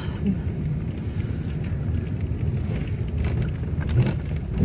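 Steady low rumble of a car driving slowly in heavy traffic, engine and tyres, with a few short knocks near the end.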